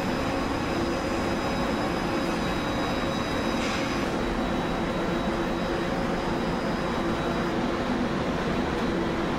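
Steady drone of steel-plant machinery on a coil processing line, an even rumble with a few steady hum tones held over it.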